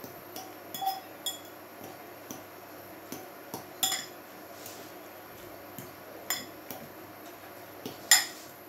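A metal fork clinking and scraping against a ceramic bowl while beating an egg, minced beef and spring onion filling. The clinks come at irregular intervals, with the sharpest one near the end.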